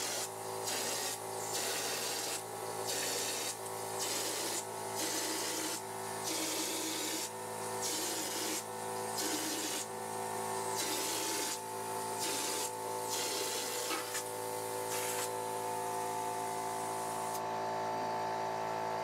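Drywall texture hopper gun spraying popcorn ceiling texture in a quick series of short hissing bursts, roughly one a second, stopping near the end, over the steady hum of a small air compressor. The spray comes in bursts because the small compressor cannot supply enough air for a continuous spray and has to build pressure between them.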